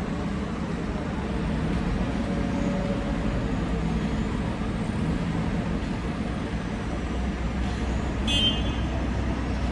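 Steady low rumble of idling vehicle engines and street traffic, with a brief high-pitched squeak about eight seconds in.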